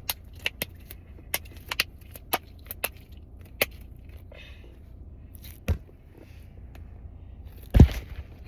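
Handling noises from objects being picked up and moved: a quick string of sharp clicks and taps, then a thump and a louder thump near the end, over a low steady hum.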